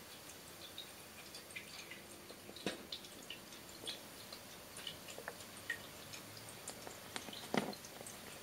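Faint, irregular clicks and soft scratches of a kitten's claws and teeth working a cloth zabuton cushion, with a louder tap about two and a half seconds in and another near the end.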